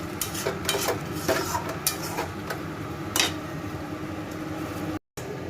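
A utensil stirring in a cooking pan, scraping and clicking against its sides with a louder knock about three seconds in, as butter is stirred into a thick paneer curry. Then the clicking stops and a steady low hum remains.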